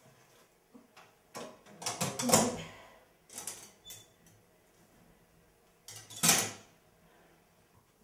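Cast-iron doors of a brick wood-fired kitchen range being opened and handled: short metal clanks and scrapes in a few bursts, the loudest about six seconds in.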